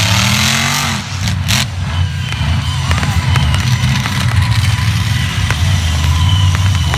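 Monster truck engine running loud, revving up and back down in the first second, with one sharp bang about a second and a half in.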